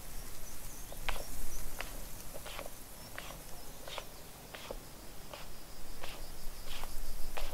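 Footsteps at a steady walking pace, about three steps every two seconds, with faint high chirping in the background.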